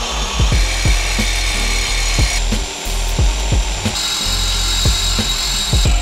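Corded reciprocating saw cutting through a factory BMW 335i steel exhaust pipe, its motor whining steadily with the pitch shifting a couple of times as the cut goes on.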